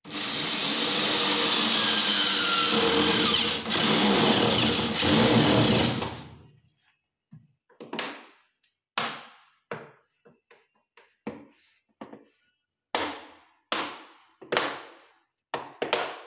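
Corded electric drill running for about six seconds as it bores into the aluminium guide channel of a rolling shutter, dipping briefly twice. Then a string of about a dozen sharp taps at uneven intervals.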